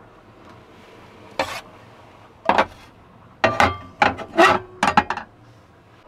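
Metal cookware clattering on a gas stove: a frying pan set down and handled on the burner grate, a string of sharp, irregular clanks, some with a short ring.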